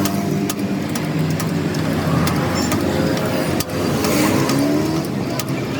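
Motor vehicle engines running in road traffic, with an engine note that rises and falls in pitch around the middle, and a series of sharp clicks throughout.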